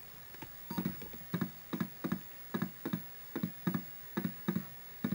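Atari 810 floppy drive formatting a disk: its read/write head steps across the tracks with a regular knocking, about three knocks a second.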